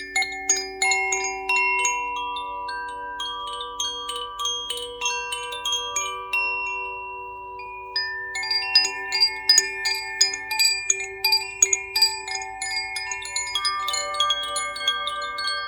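Tuned sound-therapy chimes struck over and over in quick, uneven succession, the notes overlapping and ringing on with high overtones. The strikes stop for about a second and a half in the middle while the last notes ring, then start again just as thickly.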